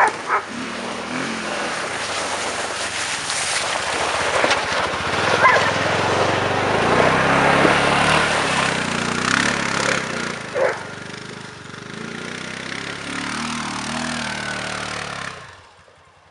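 Honda Rincon ATV's single-cylinder four-stroke engine running as the quad drives past close by, loudest in the middle, then cutting off suddenly near the end. A dog barks briefly near the start and once more about ten and a half seconds in.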